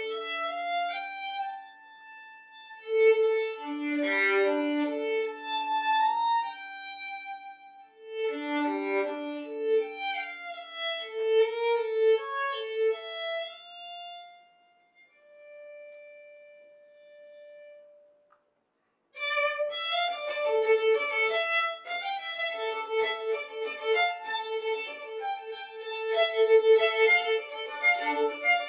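Solo violin playing slow, sustained phrases, often two notes at once, that die away to a single soft held note. After a brief silence about 19 seconds in, a fast, busy passage begins, built around a rapidly repeated low note.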